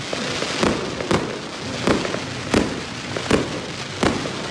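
Aerial fireworks bursting: six sharp bangs, about one every two-thirds of a second, over a steady crackling hiss.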